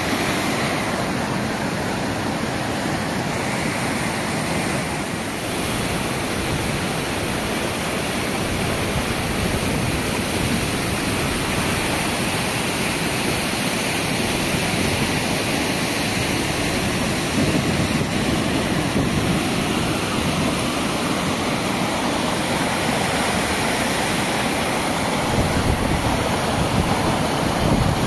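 Muddy floodwater rushing in a torrent over rocks down a gully, a steady, even rush of water.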